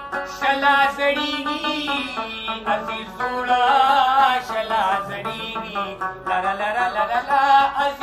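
A man singing a ghazal in a wavering, ornamented voice, accompanying himself by plucking an Afghan rabab.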